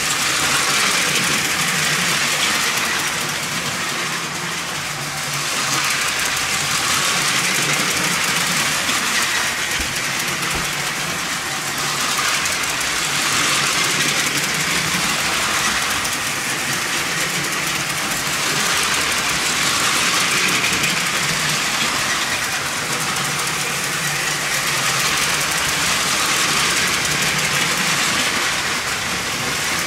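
LEGO toy trains running on plastic track: the small electric motors and wheels of the battery-powered locomotives, a steady noise that swells and fades every six to eight seconds as trains pass close by.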